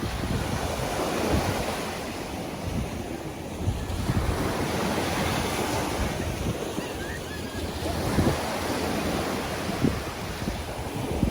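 Ocean surf breaking and washing on a beach in a steady, swelling rush, with wind buffeting the microphone.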